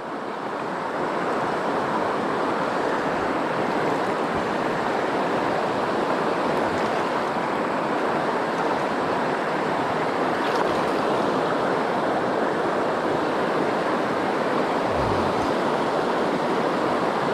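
Shallow river rushing over rocky rapids: a steady wash of running water.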